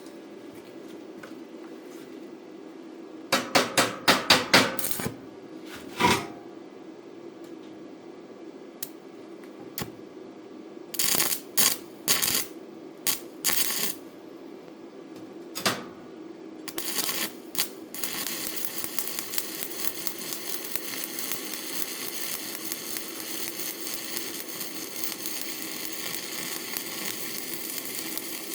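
Sharp metallic clanks and taps in several short clusters, then, about two-thirds in, a stick-welding arc strikes and runs as a steady crackling sizzle from a 7018 electrode.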